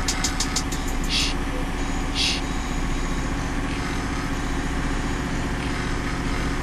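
Truck engine idling steadily, with a few short hisses about one and two seconds in.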